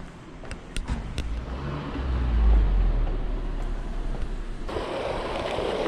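A car going past, its low rumble swelling about two seconds in. A few sharp clicks come in the first second, and a rushing hiss sets in suddenly near the end.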